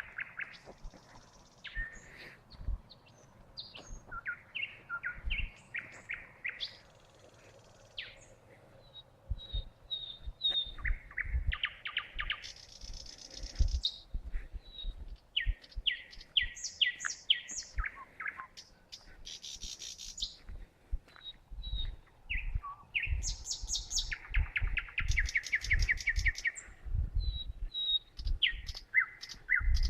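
A single songbird singing a long, varied song in short phrases: fast trills, runs of repeated clear notes and harsh rattles, with brief pauses between phrases. The uploader asks whether it is a thrush nightingale. Low thumps sound through it.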